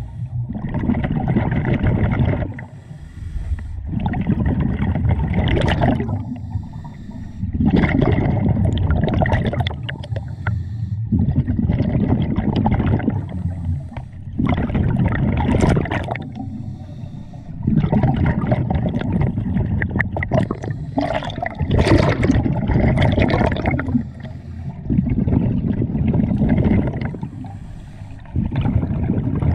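Scuba diver breathing through a regulator underwater: exhaled bubbles gurgle and rush past the microphone in bursts of two to three seconds. Each burst is followed by a quieter pause for the inhale, about one breath every three to four seconds.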